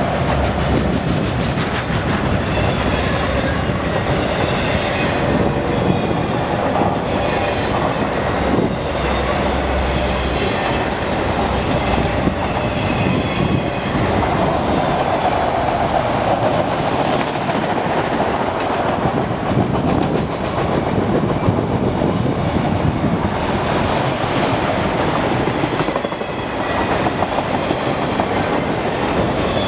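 A freight train of autorack cars rolling past at close range, a steady noise of steel wheels on the rails with clicking over rail joints, and faint high wheel squeal now and then.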